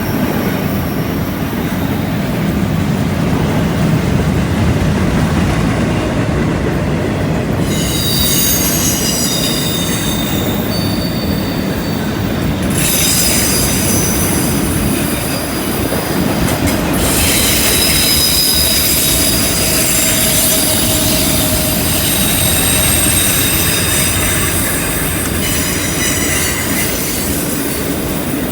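A CN freight train of double-stack and autorack cars rolling past on a curve, its wheels rumbling steadily. High-pitched wheel-flange squeal comes and goes, strongest from about eight seconds in.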